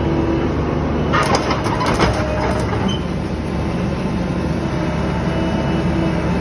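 Mini excavator's diesel engine running steadily, with a cluster of metallic clanks and rattles about a second in that lasts a second or two.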